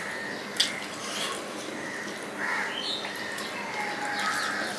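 Close-up eating sounds of a man eating rice and fish curry by hand, with a sharp mouth click about half a second in. Short chirps, like birds calling in the background, come through over the eating.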